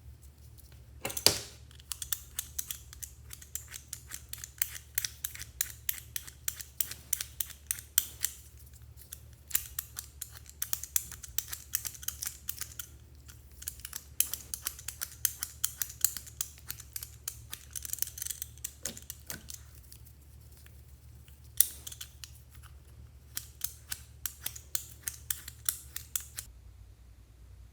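Slime being squished and worked by hand, making rapid sticky clicks and crackling pops in runs with short pauses. A steady low hum underneath stops near the end.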